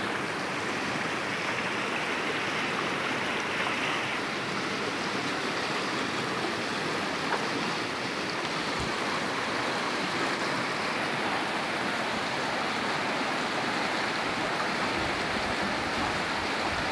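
Steady rushing of a small, fast-flowing muddy stream running over a riffle.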